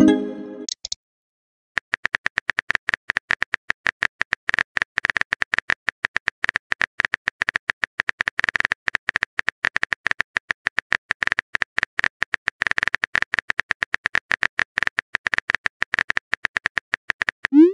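Rapid, irregular phone-keyboard tap clicks, the typing sound of a texting app, running for about fifteen seconds. A short message chime dies away in the first second, and a rising swoop tone begins right at the end.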